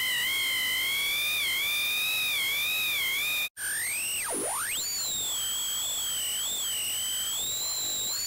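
Aliased tones in a 44.1 kHz digital recording of an ultrasonic square wave, first at 23 kHz and then at 30 kHz: the frequencies above the Nyquist limit fold back into audible false tones. A few high whistling tones wobble slightly; after a brief break about three and a half seconds in, one tone swoops down to a low pitch and back up, then settles into a wavering high whine with fainter tones around it.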